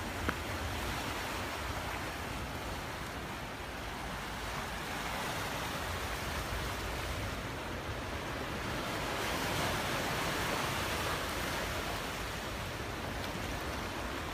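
Sea surf washing against a rocky shore, a steady rush of water that swells a little past the middle.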